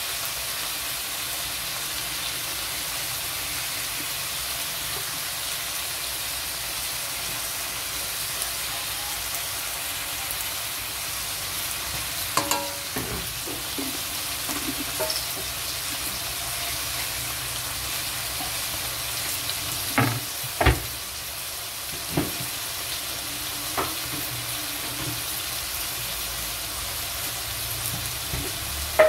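Pinakbet vegetables (string beans, eggplant and long green chilies in shrimp paste) sizzling in a hot wok, a steady frying hiss. A handful of sharp clicks come in the second half, the loudest a little after the middle.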